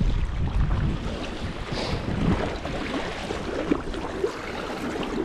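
Wind buffeting the microphone, a low rumble that is strongest in the first second or so and then eases off.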